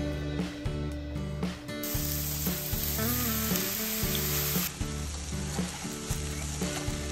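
Turkey burger patties sizzling as they fry in a nonstick pan, the sizzle starting about two seconds in, over steady background music.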